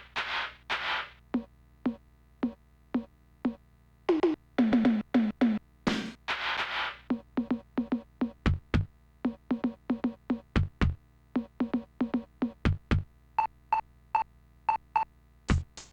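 Sampled drums from the Dynamic Drums program on an Amiga 500, played by hand in an irregular pattern: cymbal crashes and tom hits that drop in pitch, then deep kick drum hits with sharp snare-like clicks, and a quick run of six short pitched pings near the end.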